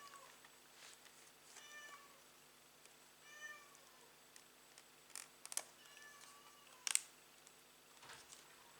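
Faint, short, high-pitched animal calls, four of them spaced a second or two apart. A few sharp clicks come between the third and fourth calls and just after the fourth, the loudest about seven seconds in.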